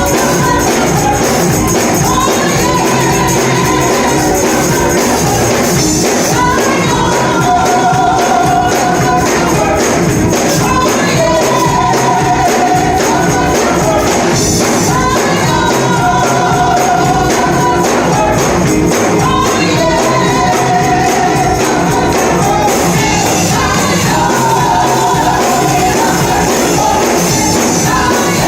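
Live gospel worship music: a choir singing held, repeating phrases over a band, with a tambourine shaking steadily through the beat.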